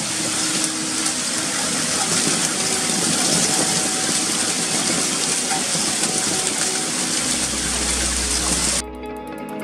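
Heavy hail and rain falling hard and steadily, a dense hiss of many hailstones striking the ground. With about a second left it cuts off abruptly and music takes over.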